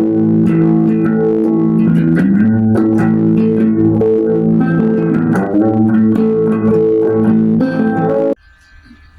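Electric guitar played clean through a compressor pedal: picked notes and chords sustain over low bass notes. The playing stops abruptly near the end, leaving only faint ringing.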